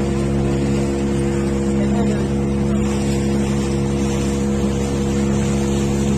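Motorboat engine running at a steady speed: a constant engine drone with a rushing noise of water and air over it.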